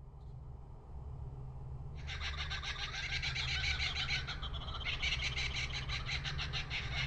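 Forest bird chorus of dense, rapid chirping that starts suddenly about two seconds in, over a low steady rumble that fades in.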